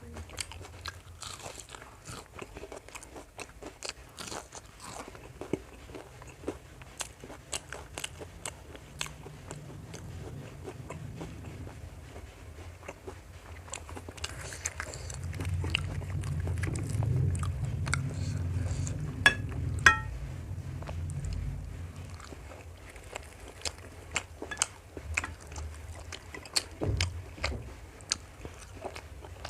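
A person chewing and crunching food close to the microphone, with many small sharp mouth and bite clicks; the chewing grows louder and heavier for several seconds in the middle, where two sharper clicks stand out.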